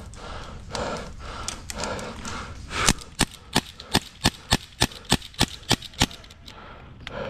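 Heavy, rhythmic breathing, then an airsoft pistol fired rapidly: about a dozen sharp shots over three seconds, about four a second.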